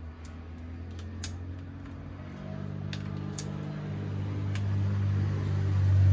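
A few light clicks and taps of plastic parts and wires being handled, over a low steady mechanical hum that grows steadily louder through the second half.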